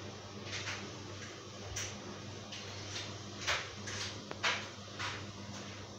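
A steady low hum with a handful of short rustles and clicks scattered through it, including a sharp tick about four and a half seconds in.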